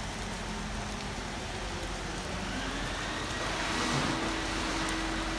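Steady rain hiss, with a vehicle on a wet road growing louder from about halfway through.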